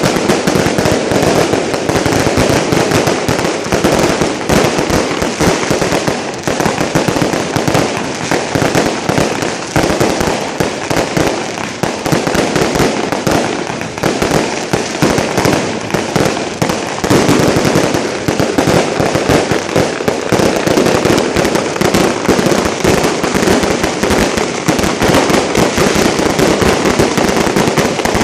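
Street fireworks going off as a dense, continuous rapid crackle of bangs.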